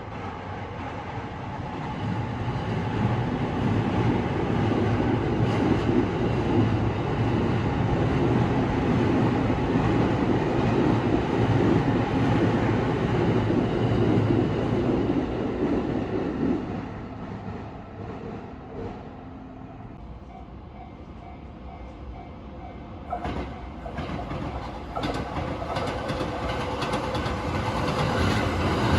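Shonan-Shinjuku Line electric commuter train passing at a level crossing: a long loud rumble of cars running over the rails that dies away after about sixteen seconds. Near the end the noise builds again as another train comes through.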